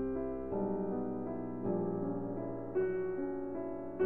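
Background piano music, with new notes or chords struck about once a second.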